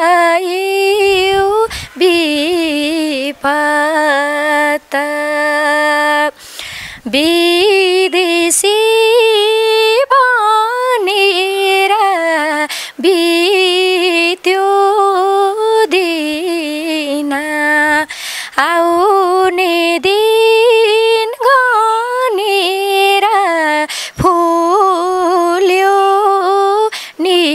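A woman singing a Nepali folk song unaccompanied, in slow phrases of long held notes with a wavering vibrato and short breaths between them.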